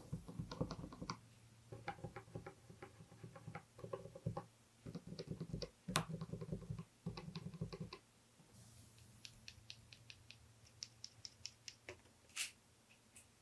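Gateron mechanical key switches being pressed, giving quiet clicks. They come in quick runs for about the first eight seconds, then as sparser single clicks.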